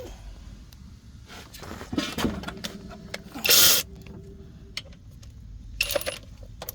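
Hand tools and metal engine parts clicking and knocking during engine teardown work, with a short, loud rasping burst about three and a half seconds in.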